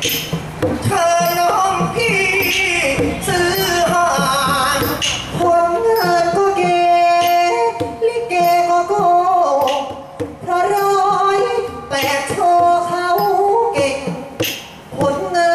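Likay singing: a solo voice through a microphone, drawn-out notes that waver in pitch, with music behind it.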